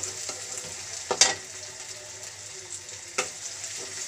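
Chopped onions and green chillies sizzling in oil in a metal karahi as the onions soften. A wooden spatula stirs them and knocks against the pan twice, loudest about a second in and again about three seconds in.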